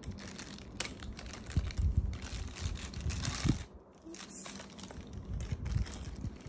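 Plastic wrapping crinkling and crackling in irregular clicks as it is handled and pulled off metal lamp arms, with a few dull knocks of the parts about one and a half to three and a half seconds in.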